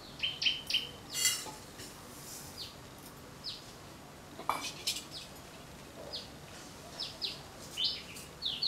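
Small birds chirping: short, high, down-slurred chirps, repeated at intervals. About a second in there is a brief hiss as sand is poured into an aluminium pressure cooker, and a light clink of metal a few seconds later.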